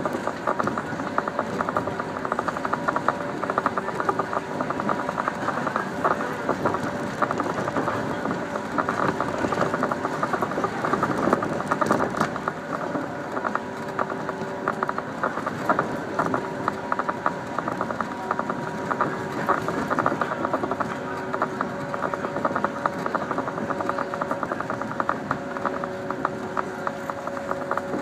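Inside a 115-series electric multiple unit while it runs: continuous rattling and clattering, with a steady hum of a few tones underneath.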